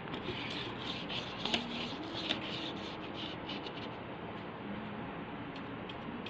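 Paintbrush scrubbing paint onto the inside wall of a cardboard box: quick scratchy strokes, about four a second, with a couple of sharper taps, stopping about three and a half seconds in. A few faint taps follow.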